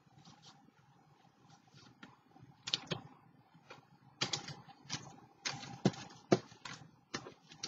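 Scraps of paper being handled on a craft table: irregular crinkles and light taps, fainter at first, then louder and more frequent after about four seconds.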